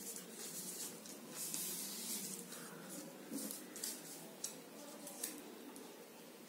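Sheet of paper rustling and sliding as hands press and smooth its folds flat on a table, in several short swishes with a faint steady hum underneath.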